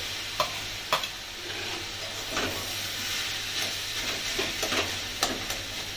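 Spiced banana-flower mixture sizzling in a metal kadai as a spatula stirs boiled potato pieces in, scraping the pan with several sharp knocks of the spatula against the metal.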